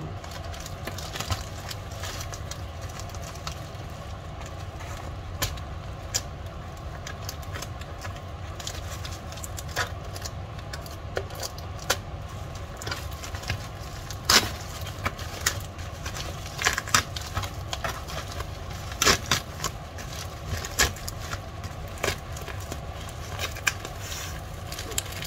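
Plastic courier mailer crinkling and rustling as it is handled and cut open with scissors: scattered sharp crackles and snips, more frequent in the second half, over a steady low hum.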